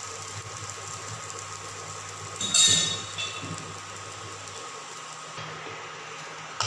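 An egg omelette frying in a pan on an electric stove: a steady hiss over a low hum, with one brief, loud metallic scrape of a spatula against the pan about two and a half seconds in.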